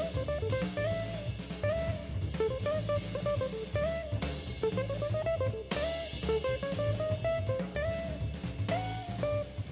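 Instrumental background music with a drum kit keeping a steady beat under a moving melody line.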